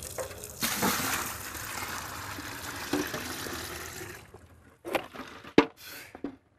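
Well water poured from a metal bucket into a plastic bucket, a steady splashing pour lasting about three and a half seconds. It is followed by a few knocks and one sharp thump as the buckets are handled and the plastic bucket tips over.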